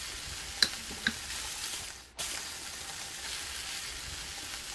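Steady hiss with two light clinks of a metal spoon against a ceramic bowl, about half a second and a second in; the hiss drops out abruptly for a moment about two seconds in.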